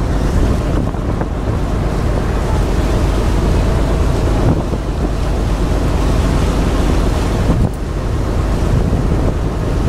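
Steady wind buffeting the microphone at the open rail of a moving passenger ferry, over the rush of choppy harbour water and a low rumble.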